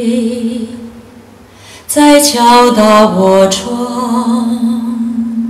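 A female singer's vocal from a Taiwanese folk-pop recording, played through Klipsch The Fives powered speakers and picked up by a camera's built-in mic. A held low sung note, then a new phrase starts about two seconds in.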